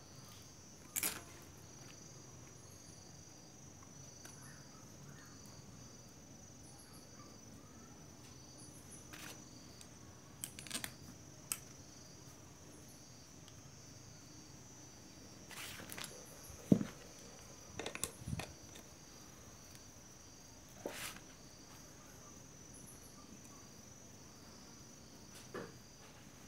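Scattered sharp metal clicks and knocks, about ten in all, as bolts and parts of a motorised sprayer's pump housing are handled and fitted by hand. The loudest knock comes a little past halfway. Under them runs a faint, steady, high-pitched insect chirring.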